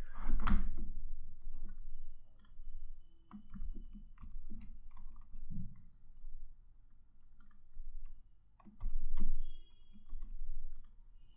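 Computer keyboard typing: irregular keystroke clicks in short runs with pauses between them, and a louder, duller bump about nine seconds in.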